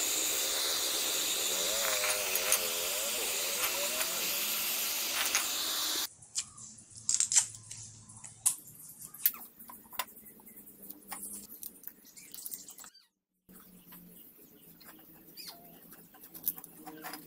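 Handheld electric heat gun blowing hot air with a steady rush for about six seconds, then cutting off abruptly. After it, quiet hand work as masking tape is pressed onto a cast-iron compressor cylinder and trimmed: scattered sharp clicks, taps and short scrapes.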